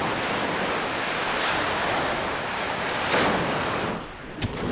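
Steady, loud rushing roar in field footage of the Mount Etna steam explosion. It swells twice and eases near the end, where a sharp click comes.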